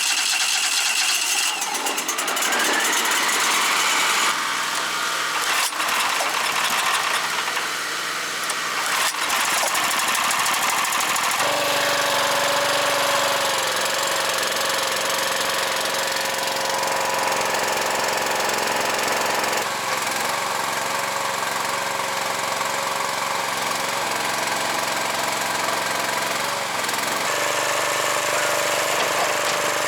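Wood-Mizer LT35 portable sawmill's engine running steadily just after start-up, with a rattly, knocking note. About eleven seconds in a steady whine and a fuller running sound join in.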